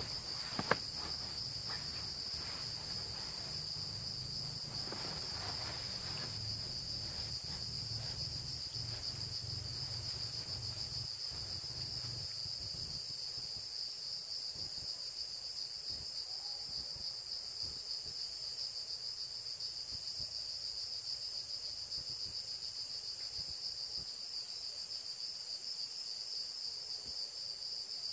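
Steady, high-pitched chorus of night insects trilling continuously, with a single sharp click about a second in.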